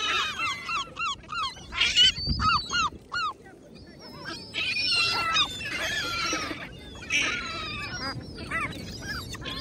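Gulls calling: a quick run of short, yelping notes, about three or four a second, over the first three seconds, then more calls overlapping.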